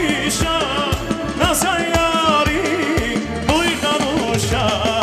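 Live band music with a male voice singing into a microphone: accordion and keyboard playing a wavering melody over a steady drum beat.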